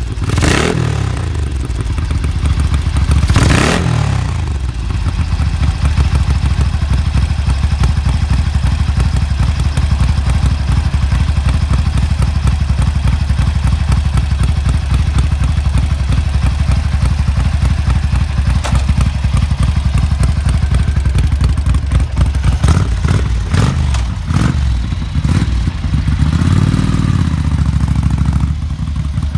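Ducati 900 Mike Hailwood Replica's bevel-drive 90° V-twin running through round Conti mufflers, a steady low idle. The throttle is blipped briefly a few times, once near the start and several times near the end.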